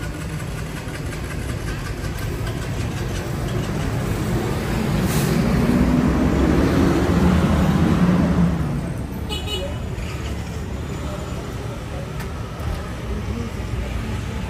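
City street traffic, with a vehicle passing close by: the noise builds over a few seconds, is loudest about seven to eight seconds in, then falls away quickly.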